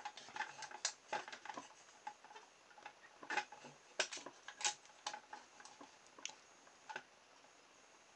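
Light, irregular clicks and ticks from a homemade mousetrap car as its bicycle-spoke back axle is wound by hand in the metal DVD-drive case. Turning the axle winds fishing line onto it and draws back the mousetrap's spring arm. The clicking stops about seven seconds in.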